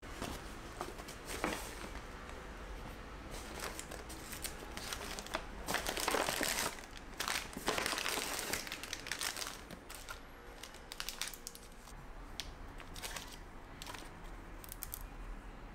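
Paper shopping bag and plastic pastry wrappers crinkling and rustling as packaged sweets are taken out by hand and set down on a counter, in irregular bursts, loudest around the middle.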